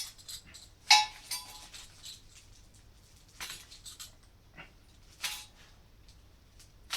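Metal parts clinking and clanking as they are handled and set down: a handful of sharp knocks, the loudest about a second in with a brief metallic ring.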